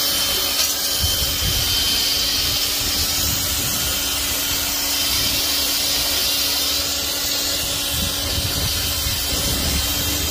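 Portland 1750 psi electric pressure washer running steadily with a constant whine from its motor and pump, and the hiss of soapy water spraying through a foam cannon. It cuts off abruptly at the very end.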